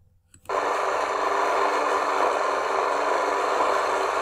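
The engine of a grass-cutting machine running steadily, cutting in abruptly about half a second in.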